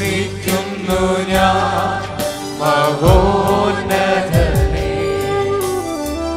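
Congregation of graduates singing a Christian hymn together from song booklets, with instrumental accompaniment and a steady beat.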